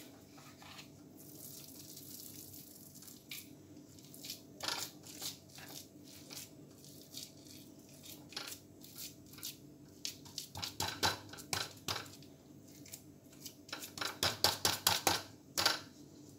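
Spatula scraping and tapping against a metal baking tray as a thick coconut burfi mixture is pressed down and smoothed in it: irregular clicks and scrapes, with a quick run of taps about two-thirds of the way in and a denser run near the end.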